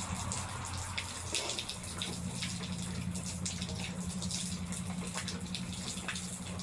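Rainwater running and dripping, with many separate drops striking close by.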